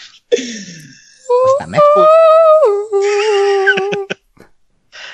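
A person humming a high, sustained note that steps down to a lower held note partway through, a mock opera aria. A short downward-sliding vocal sound comes just before it.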